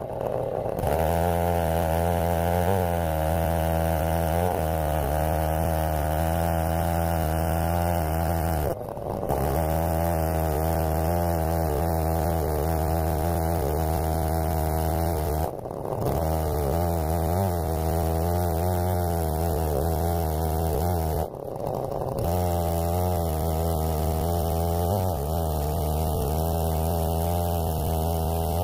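Stihl 070 chainsaw running at a steady high speed under load, ripping a black walnut log lengthwise on an Alaskan chainsaw mill. The steady note drops out briefly a few times.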